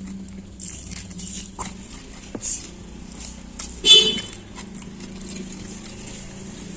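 Close-up chewing and biting of crispy fried tofu, with scattered small crunches and one loud crisp crunch about four seconds in.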